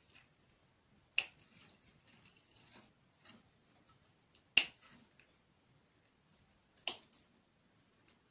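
Household scissors snipping through kalanchoe stems: three sharp snips, about a second in, in the middle and near the end, with a few lighter clicks just after the last.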